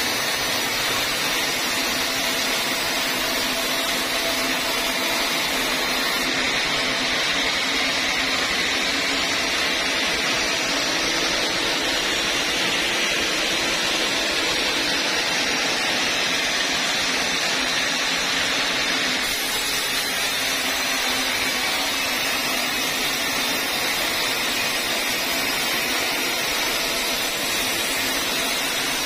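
Band sawmill blade running steadily as it rips lengthwise through a teak beam: a constant hiss-like cutting noise.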